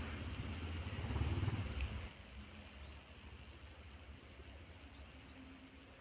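Quiet outdoor background: a low rumble for about the first two seconds, then a faint steady hush with a few short, high, rising bird chirps.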